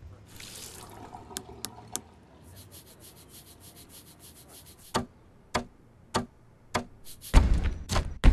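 A tap runs briefly into a sink, then a toothbrush scrubs teeth in quick back-and-forth strokes. These give way to a series of evenly spaced thuds, a little over half a second apart, which grow heavier near the end.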